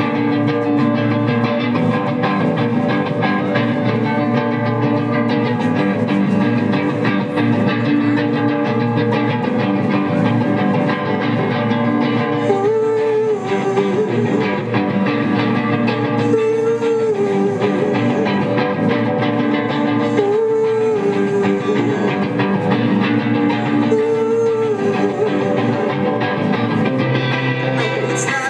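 Electric guitar played live through an amplifier in an instrumental passage with no singing, from a Stratocaster-style guitar. In the second half a wavering note recurs about every four seconds.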